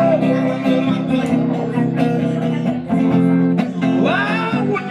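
Guitar-backed band music playing between sung lines, with a short sung glide rising about four seconds in.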